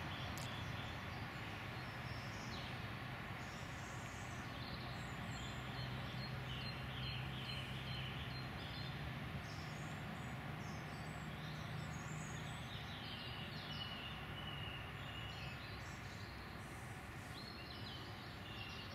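Outdoor lakeside ambience: small birds chirping on and off over a steady background hiss, with a low steady hum through the middle few seconds.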